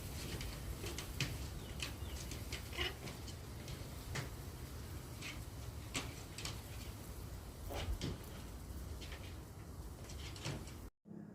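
Birds outdoors: scattered short chirps and sharp clicks over a steady low rumble.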